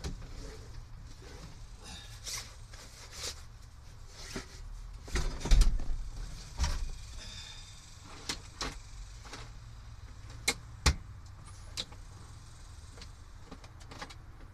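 Hand tools and cans being rummaged through and handled: scattered clicks and knocks, a louder clatter of thumps about five seconds in, and two sharp clicks near the eleventh second.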